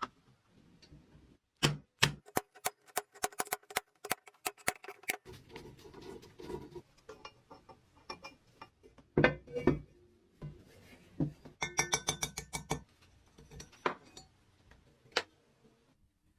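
Hard objects knocking and clicking in quick runs of sharp taps. A dense run comes about two to five seconds in, then shorter clusters and a few single knocks near the end.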